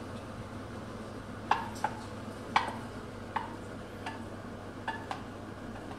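Spatula scraping and knocking against a frying pan as scrambled eggs are pushed out onto a plate: about six sharp, irregular knocks, each with a brief ring.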